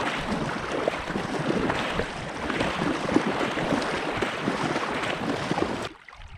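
Double-bladed kayak paddle strokes, the blades dipping and splashing in pond water, with wind buffeting the microphone. The sound stops abruptly near the end.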